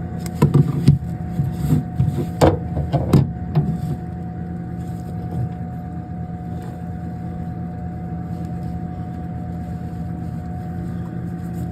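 Steady machine hum, with a handful of sharp clicks and knocks from hands handling things in the first four seconds.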